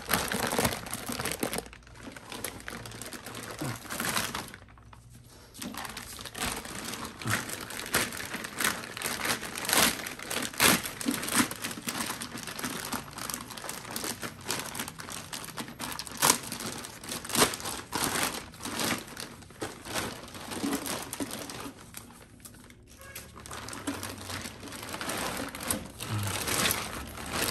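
Plastic packaging bags crinkling and rustling in irregular crackles as they are handled and pulled off a boxed inverter, with two short lulls.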